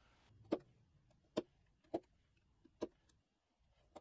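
Four sharp wooden knocks, irregularly spaced about a second apart: a chisel being struck down into a plywood gear to cut out a hexagonal recess for a nut.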